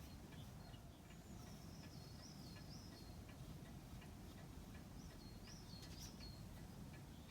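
Near silence: faint room tone with a soft, regular ticking in the first seconds and faint high, wavering chirps, twice.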